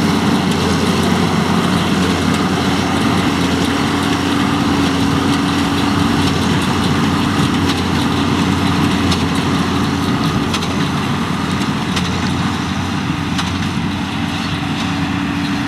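John Deere tractor diesel engine running steadily under work, with a steady hum and machine noise and a few faint sharp ticks; it fades slightly near the end.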